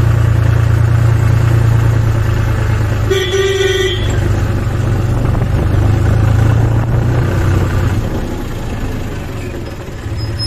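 John Deere tractor's diesel engine running steadily on the move, its low drone easing off after about eight seconds. A horn beeps once, briefly, about three seconds in.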